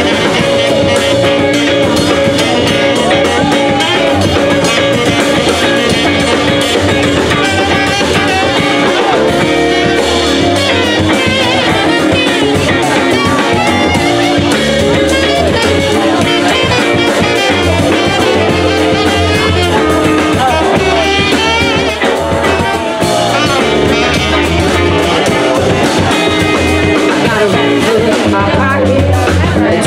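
Live small jazz band playing: a saxophone solo over upright bass, drum kit and electric guitar.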